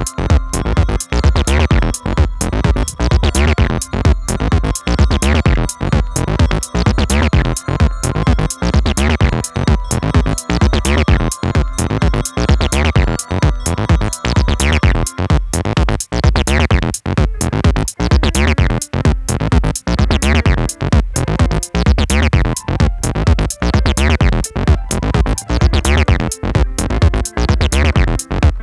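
Electronic instrumental music with a steady drum-machine beat and synth bass, from a live setup of a Yamaha PSS-A50 keyboard and iPhone synth apps.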